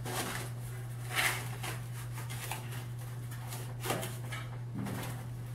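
Cardboard being handled and pressed into place: a few faint rustles and scrapes, over a steady low hum.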